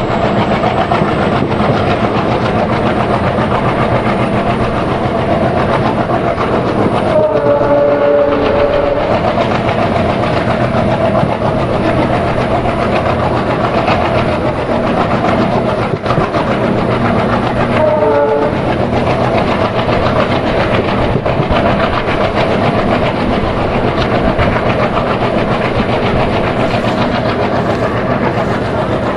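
Uttaranchal Express running at speed, its wheels clattering steadily over the rails. A brief horn sounds twice, about eight and eighteen seconds in.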